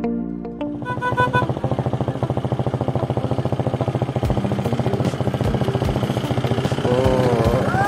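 Diesel engine of a Mahindra Bolero pickup running as it drives slowly up to the camera, an even, rapid firing pulse growing louder. Voices call out near the end.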